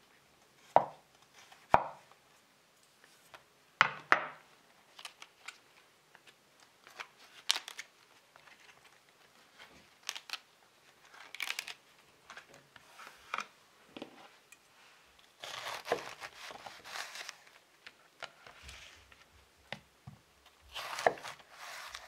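A knife trimming and cutting heads of Belgian endive on a wooden cutting board: scattered sharp taps of the blade on the board, and short crisp cutting sounds as it goes through the leaves.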